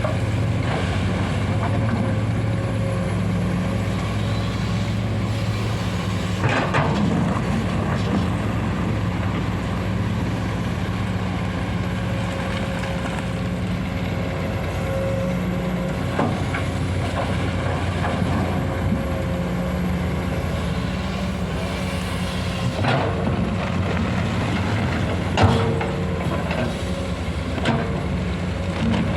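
Komatsu PC200 hydraulic excavator working, its diesel engine running steadily with a constant hydraulic whine. A few sharp knocks and clunks break in now and then, the loudest about 25 seconds in.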